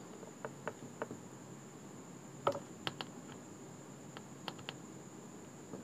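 Faint, irregular clicks and taps of metal multimeter test-probe tips being placed on and moved between the solder joints of a small transistor's legs on a circuit board, about a dozen short clicks with no steady rhythm.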